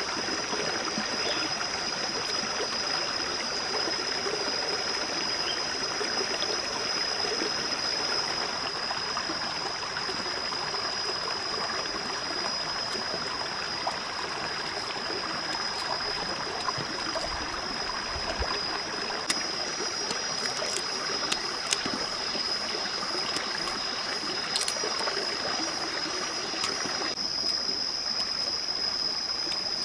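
Shallow rocky stream running steadily, with a constant high-pitched tone over it. A few sharp clicks come in the second half as the cleaver cuts into the yam.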